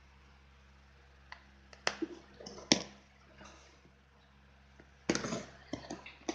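A cardboard shipping box handled on a table: a few sharp taps and knocks, then a burst of scraping and rustling about five seconds in as the box is turned over and its packing tape is worked at.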